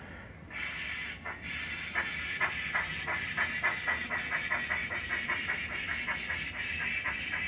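DCC sound decoder in a model Great Western tank locomotive playing steam sounds as it pulls away. A hiss of steam comes about half a second in, then exhaust chuffs start slowly and quicken to about four a second.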